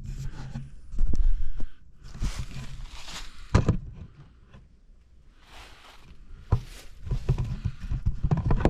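Handling noise from a camera being set in place: irregular knocks, clicks and rustles close to the microphone, with a loud low rumble for about half a second about a second in and a sharp click at about three and a half seconds.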